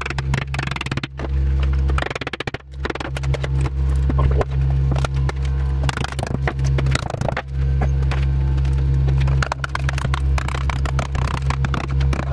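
Hammer and chisel knocking and scraping hardened spilled resin off a round electromagnet set into a bench top, a quick run of sharp taps and scrapes. A steady low hum runs underneath and drops out briefly twice.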